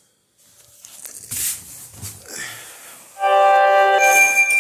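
Faint scattered handling noises, then about three seconds in a loud sustained chord of steady musical tones starts abruptly, keyboard- or organ-like.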